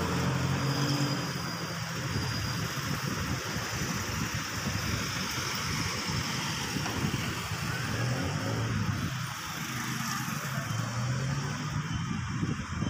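City street traffic: vehicle engines running and passing over a steady wash of traffic noise, with a low engine hum that rises about a second in and again around eight to eleven seconds in.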